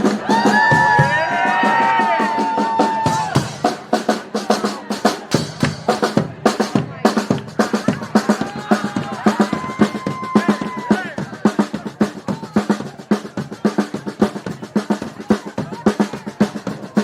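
A brass band: horns hold and slide a note for the first few seconds, then the drum section takes over with a fast, busy snare and bass drum groove. A short horn phrase comes in briefly around the middle.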